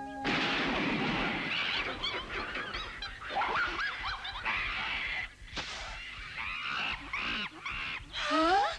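A troop of monkeys screeching and chattering, many shrill wavering calls overlapping, with one loud rising scream near the end.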